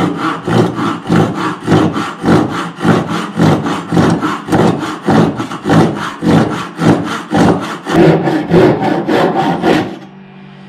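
A hand tool worked on wood in fast, even back-and-forth strokes, about two a second, stopping abruptly shortly before the end.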